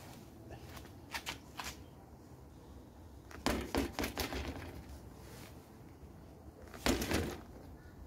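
A 2015 Academy Aspire BMX bike bounced on concrete in a bump test to check for rattles: a few short knocks about a second in, a cluster of knocks and clatter from about three and a half to four and a half seconds, and another near seven seconds. The bike sounds pretty quiet, with no loose parts rattling.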